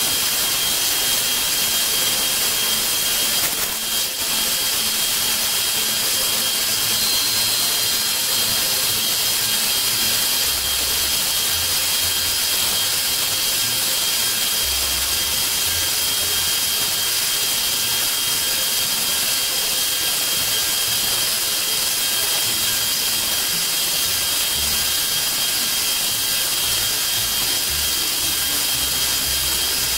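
CNC milling machine's end mill cutting aluminium, profiling a round boss on a plate, under a steady hiss from an air nozzle aimed at the cutter, with a steady high whine.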